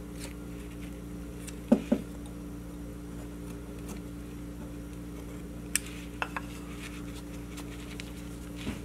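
Carving knife paring small slivers from a basswood figure, with scattered light clicks and knocks of the knife and wood being handled, two louder knocks close together about two seconds in. A steady low hum runs underneath.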